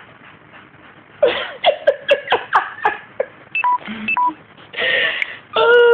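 Loud laughter in quick, rapid bursts, followed by two short electronic beeps and then a loud voiced outburst near the end.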